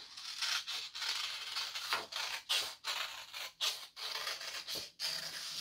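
Scissors cutting through black construction paper: a series of snips, about one or two a second, with the paper scraping and rustling between them.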